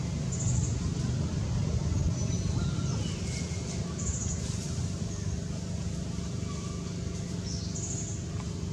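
Steady low rumble of outdoor background noise, with a few brief high chirps and thin whistled notes over it.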